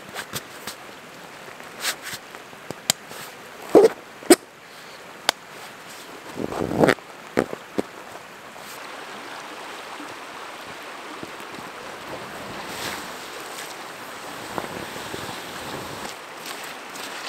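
A river running steadily, with a canvas swag rustling as it is rolled up and a run of sharp clicks and knocks from its straps being pulled tight, mostly in the first half.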